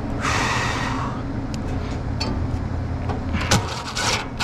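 A steady low machinery hum with hands and tools working on the condensing unit's sheet metal: a short rustling scrape early on, scattered clicks, and two louder knocks or scrapes near the end.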